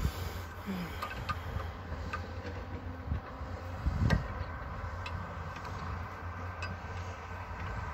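Scattered small clicks and taps of hand tools on metal parts, with a louder knock about four seconds in, over a steady low rumble of wind on the microphone.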